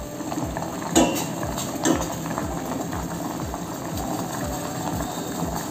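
Broth at a rolling boil in a stainless steel pot, stirred with a plastic spoon that knocks against the pot twice, about one and two seconds in.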